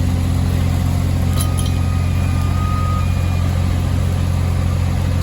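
Heavy diesel engine running at a steady speed, a deep even drone. A couple of faint clicks and a thin high whine come between about one and a half and three seconds in.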